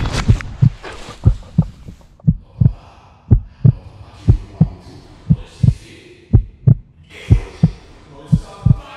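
Heartbeat sound effect: pairs of low 'lub-dub' thumps, about one pair a second, steady throughout.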